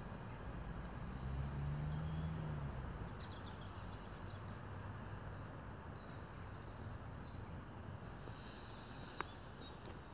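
Outdoor ambience: a steady rush of background noise, with a low hum that swells and fades in the first three seconds, faint bird chirps, and one sharp click about nine seconds in.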